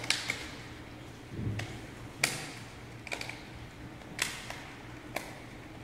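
Irregular sharp taps and clicks, about nine in all, over a low steady hum.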